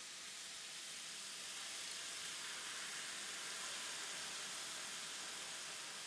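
Stir-fried beef and blanched broccoli sizzling in hot oil in a stir-fry pan, a steady hiss that grows a little louder about two seconds in.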